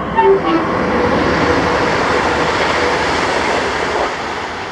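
Electric multiple-unit passenger train passing close by, a loud steady rail rumble with a few short tones in the first half-second, easing slightly near the end.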